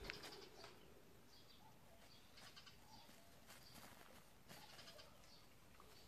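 Near silence, with faint, brief animal calls in the background.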